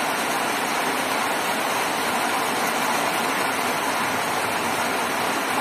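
Heavy rain falling in a steady downpour, an even rushing hiss.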